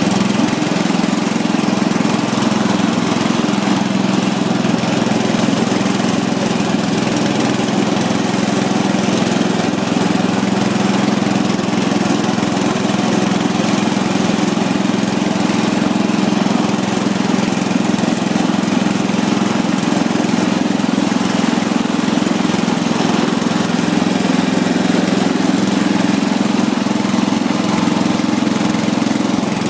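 Lawn mower engine running steadily at an even speed, with no revving up or down.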